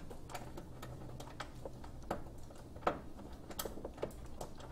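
Scattered light clicks and taps from hand work on a lawn tractor's engine bay, coming at irregular intervals, over a faint steady low hum.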